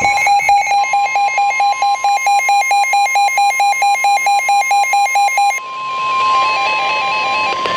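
Emergency alert receivers sounding a real Shelter In-Place Warning. Rapid electronic beeps, about five or six a second, play over a steady warning tone that comes in about a second in. Near six seconds the rapid beeping stops, leaving slower beeps and the steady tone.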